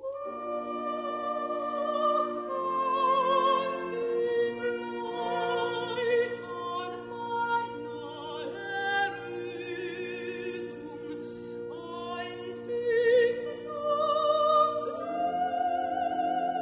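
Dramatic soprano singing an operatic ballad in German with orchestral accompaniment, her held notes carrying a wide vibrato over sustained orchestral chords. Voice and orchestra come in suddenly after a short silence.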